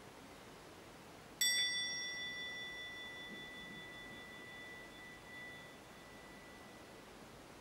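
Small brass hand bell rung once, about a second and a half in, giving a clear, high, bright ring that fades slowly over several seconds.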